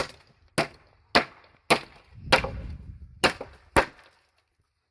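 Pneumatic nail gun firing nails into scrap wood: six sharp shots, mostly about half a second apart, with a short rougher noise and a pause in the middle, then it stops about a second before the end.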